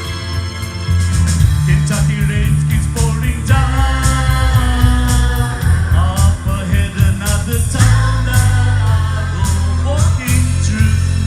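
Live band playing a slow pop-country ballad: bass and drums with cymbal strokes throughout, and a gliding melodic lead line over them from a few seconds in.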